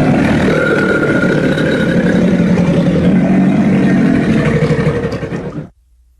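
Designed Suchomimus dinosaur call made from crocodilian and low-pitched cougar recordings: one long, rough, low rumbling vocalization, steady in pitch, that cuts off suddenly near the end.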